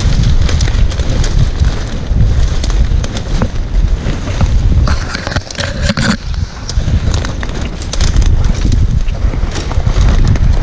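Wind buffeting the microphone, with scattered crackling and rustling throughout.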